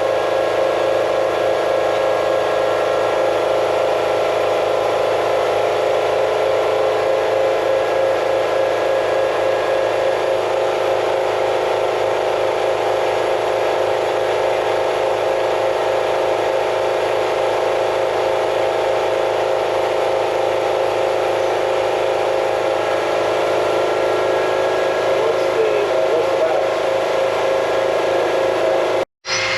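Doosan HP 5100-II horizontal machining center running with a steady whir and several held tones. The sound drops out for a moment near the end.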